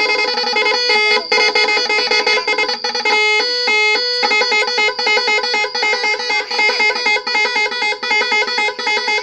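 Bus 'telolet' multi-tone horn playing a quick tune of stepping notes, loud, with a two-note back-and-forth about halfway through.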